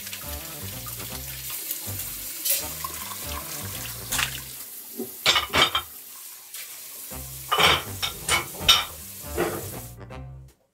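Kitchen tap running water into a sink as dishes are rinsed, with several clinks and clatters of dishes being handled; the water shuts off suddenly near the end.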